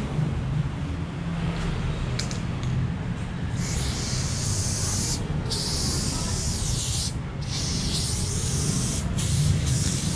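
Aerosol spray paint can spraying: a few brief hisses, then from a few seconds in long hisses broken by short pauses, over a steady low hum.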